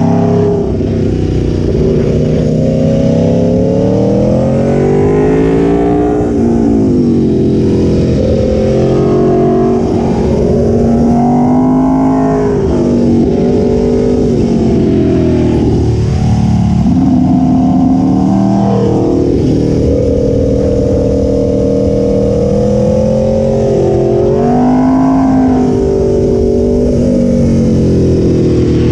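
2016 Aprilia Tuono 1100 Factory's V4 engine running under changing throttle, its pitch climbing and falling back again every few seconds as it revs up and drops off.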